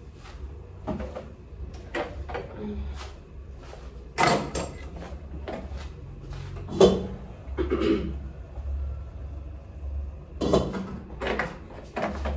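Kitchen clatter: a string of knocks and clicks from things being handled and set down, the loudest about the middle, over a steady low hum.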